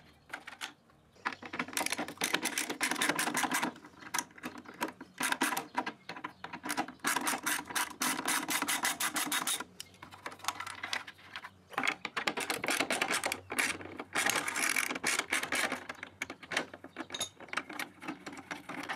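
Hand ratchet with a Torx T25 bit clicking as screws are backed out of motorcycle fairing panels. It comes in several runs of rapid clicks, with short pauses between them.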